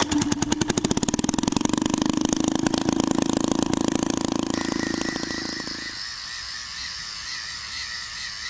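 Small petrol engine on a test bench running with rapid, even firing pulses. It dies away about six seconds in, leaving a faint high whine.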